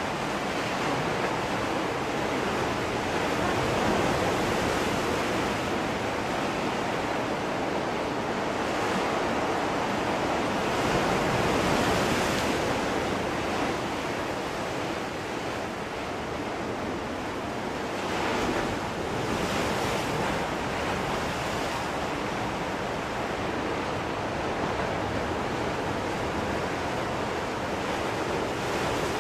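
Sea waves breaking and washing on the shore in a steady surf, swelling louder every several seconds as larger waves come in.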